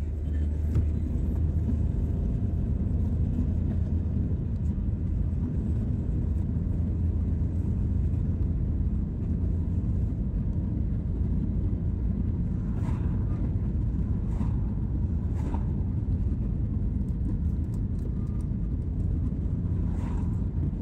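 Steady low rumble of a car's engine and tyres on the road, heard from inside the cabin while the car drives along towing a caravan. A few faint clicks come in the second half.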